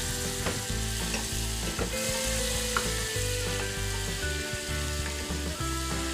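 Butter sizzling as it melts in a hot saucepan, stirred with a wooden spoon, with a few soft taps of the spoon against the pan.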